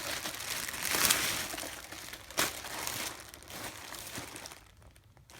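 Packaging crinkling and rustling as a new handbag is unwrapped and handled, with sharper crackles about a second in and again a little over two seconds in, dying away near the end.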